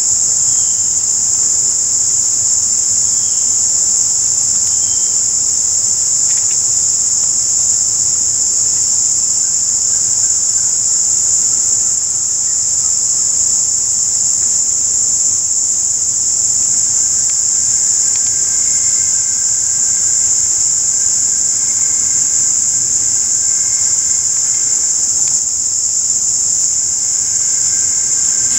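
A dense, steady, high-pitched chorus of insects such as crickets, unbroken throughout. Past the middle, fainter steady lower tones join it.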